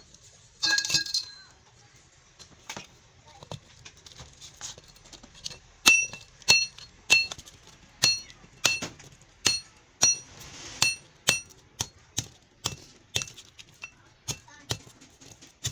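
Hammer blows on metal while knocking the copper windings out of a washing machine motor. After a few strikes about a second in and some light taps, the blows settle into a steady run of about one and a half a second, each with a short metallic ring.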